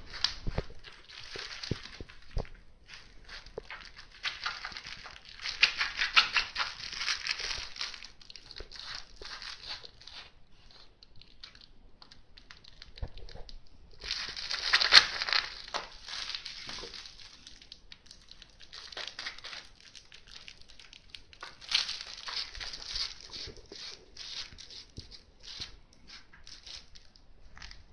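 A cat wrestling and kicking a plush catnip kicker toy on a towel mat: crinkling and rustling in bursts, loudest about five to eight seconds in and again around fifteen seconds in.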